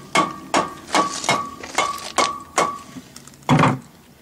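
Rubber mallet striking a truck's rear wheel hub, about two blows a second, each with a short metallic ring, as the hub seal is driven onto the last bit of the axle shaft. A single louder, longer thud comes about three and a half seconds in.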